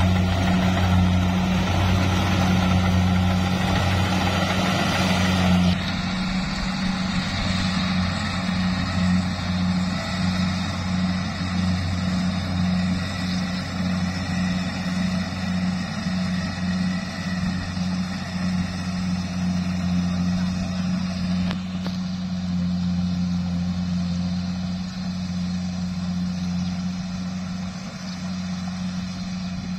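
Rice combine harvester's engine and threshing machinery running steadily while harvesting, with a constant low hum. It is loud and close for the first six seconds or so, then farther off and duller for the rest.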